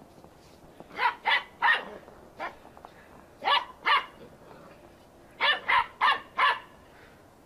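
Small dogs barking while they play: sharp, short barks in three quick runs of two to four, about ten in all.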